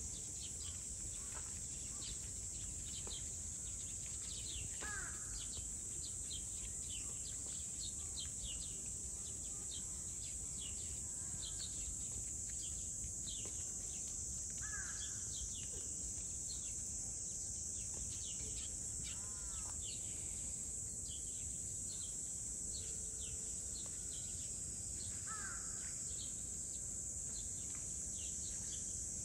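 Outdoor ambience of insects buzzing steadily at a high pitch, with small birds chirping throughout and three louder bird calls spaced about ten seconds apart.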